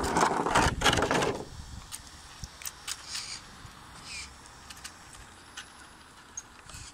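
Homemade RC car running on rough concrete, underpowered on a single battery: a loud rattling noise for about the first second and a half, then only faint scattered clicks.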